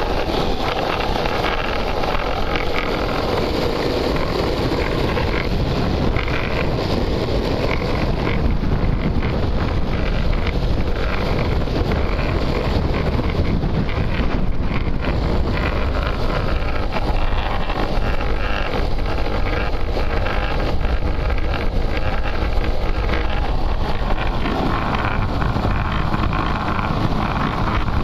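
Wind buffeting the microphone at speed, mixed with the steady rumble of longboard wheels rolling on asphalt.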